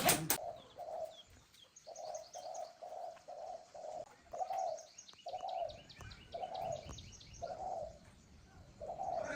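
A dove cooing over and over, short low notes about two a second, then slowing to about one a second, with small birds chirping faintly above it. A brief loud burst at the very start.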